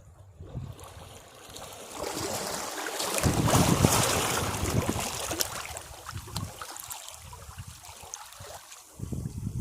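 Sea waves breaking on rocks: a wave surges in and crashes about three seconds in, then washes back and ebbs, and the next one starts to surge near the end.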